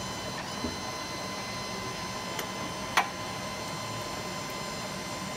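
Steady background hum of a busy exhibition hall, with faint steady tones running through it. A single sharp click about three seconds in is the loudest sound.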